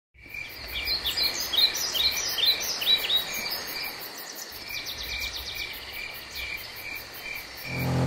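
Insects trilling with birds calling: a fast, high insect pulse and a steady chirp repeating two or three times a second, with quick rising and falling bird calls over the first few seconds.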